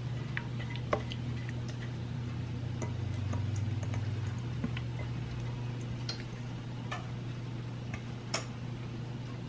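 A spoon clicking and scraping against the pot and glass bowl as thick cranberry sauce is scooped out, in scattered light taps over a steady low hum.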